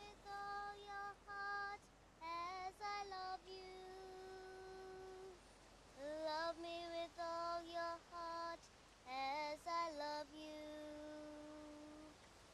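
A lone high voice singing a slow tune unaccompanied, in short phrases with a few long notes held with vibrato.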